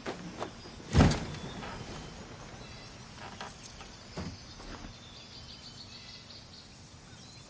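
Woodland ambience with faint birds and insects chirping, including a short run of high chirps near the middle. About a second in, a single loud thump stands out.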